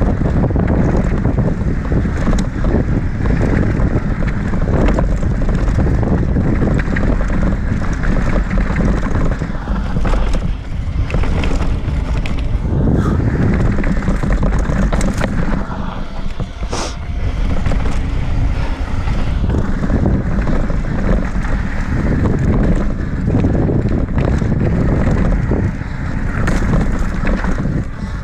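Mountain bike descending a rocky dirt trail at speed: steady wind rush on the camera microphone over tyre noise, with frequent rattles and knocks as the bike runs over rocks.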